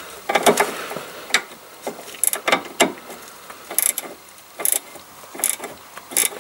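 A 13 mm spanner working the nut on top of an anti-roll bar drop link in short strokes, giving sharp metallic clicks roughly once a second. This is the final tightening, done until the rubber bush starts to compress.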